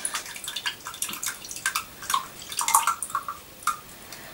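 Canned French onion soup pouring from the opened tin onto minced beef in a bowl: a run of irregular wet splats and drips that stop about three and a half seconds in.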